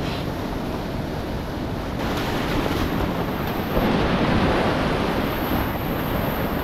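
Steady rush of whitewater pouring through the rapids of the Potomac's Great Falls, swelling louder about four seconds in.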